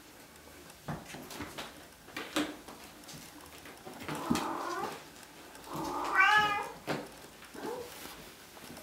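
Bengal kittens meowing twice, a shorter call about four seconds in and a louder one around six seconds in, over light knocks and scratching as they play on a sisal scratcher.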